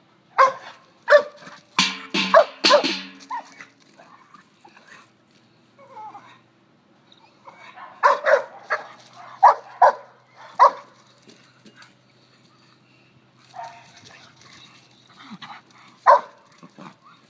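A dog barking in bursts: a few sharp barks near the start, a quick run of barks about two to three seconds in, another run of barks around eight to eleven seconds, and a single loud bark near the end.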